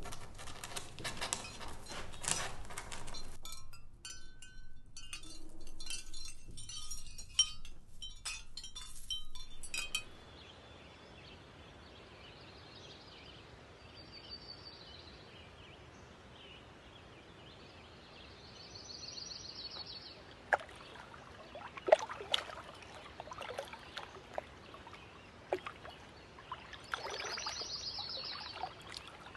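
Dense clicking and crackling for about the first ten seconds, cutting off suddenly. Then a quiet outdoor ambience in which birds give short trilling chirps three times, with scattered sharp clicks.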